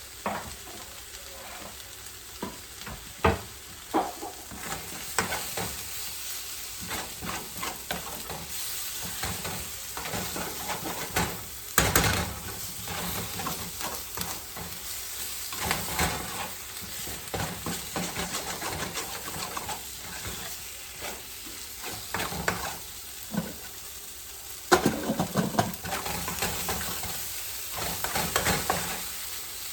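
Canned corned beef sizzling in a frying pan as it is stirred, with a steady hiss and irregular scrapes and knocks of the utensil against the pan.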